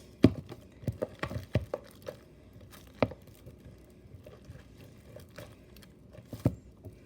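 Homemade glue slime, still sticky, being squished and pulled by hand in a bowl: irregular soft knocks and sticky clicks, several close together in the first two seconds, then a few spaced out.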